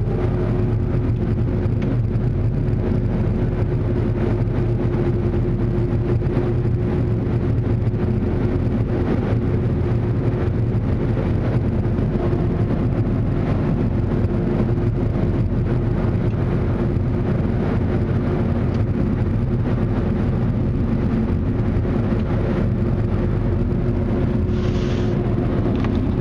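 Onboard blower dryers of a Ryko SoftGloss XS 2.0 in-bay automatic car wash blowing air over the car as the gantry passes, heard from inside the car. It is a loud, steady rush of air with a constant hum.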